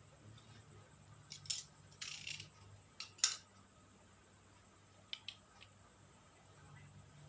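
Several light clicks and taps of small hard objects being handled, with a short scrape about two seconds in, over a faint low hum.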